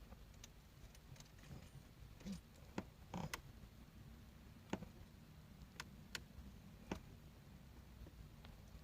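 Near silence broken by a dozen or so faint, irregular small clicks as a nut is threaded onto a horn push button's threaded body.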